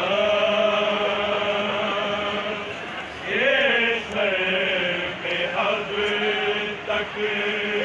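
A man's voice chanting a noha, a Shia mourning lament, in long drawn-out held notes. About three seconds in, a short phrase rises and falls before the notes are held again.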